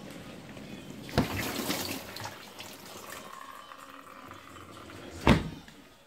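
Bosch dishwasher door handled during a door-lock check: a knock about a second in, followed by about a second of rushing water-like noise, then a louder single thud near the end as the door is pushed shut.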